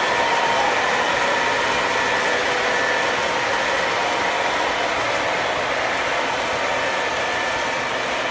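O-gauge model trains running on the layout's track: a steady rolling rumble of wheels on rail with a steady whine running through it.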